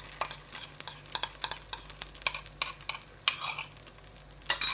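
Spoon scraping and clinking against a ceramic bowl as a beaten egg mixture is scraped out onto an appam in the pan: a run of short irregular clinks, a few a second, with a louder scrape near the end.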